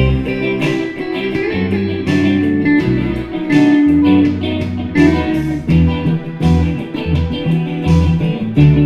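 Outro music: a guitar-led instrumental, with electric guitar and bass over a steady beat.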